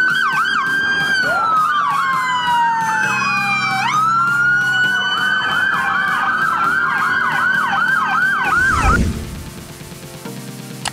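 Police motorcycle sirens: two electronic sirens sounding together, one in a slow rising-and-falling wail, the other in a fast, repeating yelp. They stop about nine seconds in with a low whoosh, leaving quiet background music.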